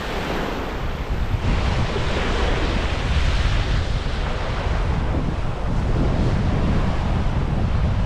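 Strong wind buffeting the microphone with a steady low rumble, over the hiss of waves washing onto a beach.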